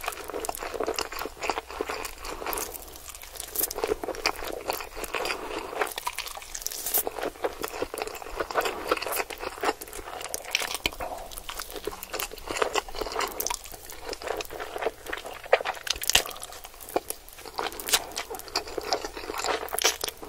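Close-miked slurping and chewing of spicy instant noodles: wet sucking and smacking with many quick clicks, continuing throughout.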